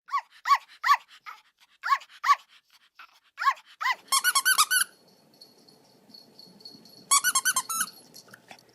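A dog giving short, high-pitched yips, singly and irregularly at first, then in a quick run of rapid yips about four seconds in and another about seven seconds in.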